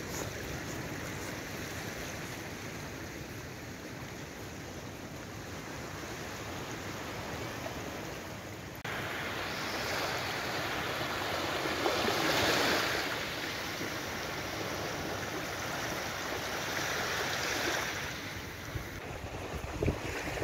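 Small waves washing up on a sandy shore with wind. The surf gets louder about a third of the way in and swells once around the middle, and gusts buffet the microphone near the end.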